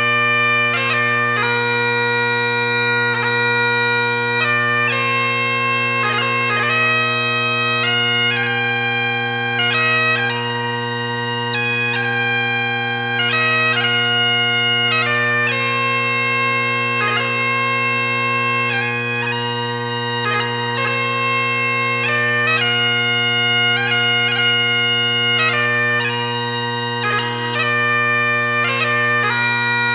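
Bagpipe tune: a melody on the chanter moving note by note over steady, unchanging drones.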